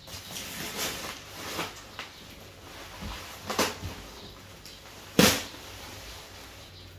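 Irregular rustling and light knocks of objects being handled, with one sharp knock about five seconds in.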